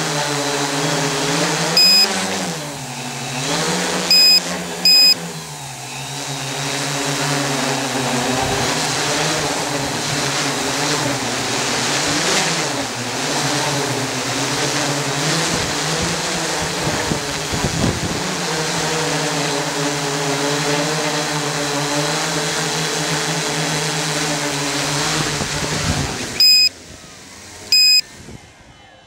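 Electric motors and propellers of an Oktokopter XL octocopter whining in flight, the pitch rising and falling as the throttle changes, then dropping away suddenly near the end as it sets down on the grass. Sharp electronic beeps cut in three times in the first few seconds and twice near the end.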